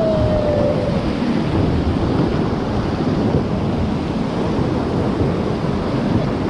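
Whitewater rapids rushing loudly and steadily around an inflatable raft.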